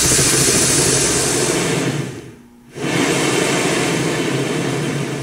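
Remote-canister gas camping stove burner lit and burning with a steady hiss. About two seconds in the burner noise drops away almost completely for under a second, then comes back. It grows quieter near the end as the valve is turned down toward low heat.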